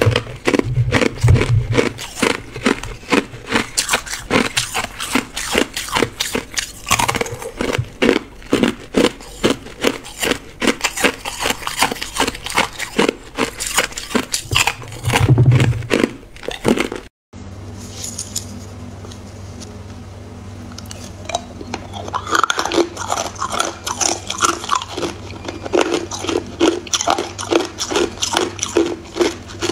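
Hard ice cubes coated in matcha powder being bitten and chewed close to the microphone: rapid, dense crunching, several cracks a second. About halfway through the sound drops out briefly, and the crunching goes on softer over a steady low hum.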